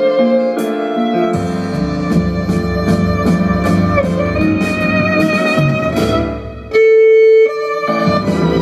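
Violin and contrabass duo playing a pop-style piece: the violin carries the melody with vibrato over low, plucked double bass notes. Near the end, one note is held loudly for under a second.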